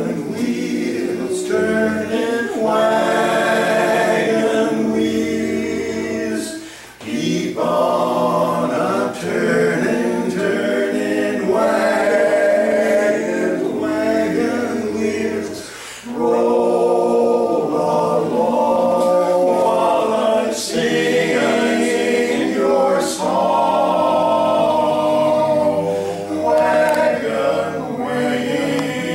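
Male vocal quartet singing a cappella in four-part harmony, holding sustained chords, with brief breaks about 7 and 16 seconds in.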